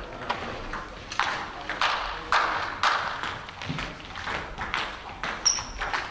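Table tennis ball struck by bats and bouncing on the table during a rally: a run of sharp clicks, about two to three a second.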